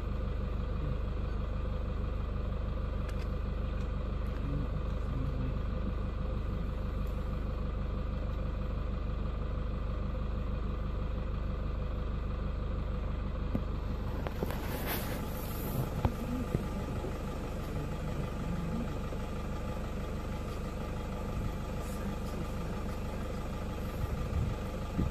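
A vehicle engine idling steadily, with a short burst of noise and a few clicks about fourteen seconds in.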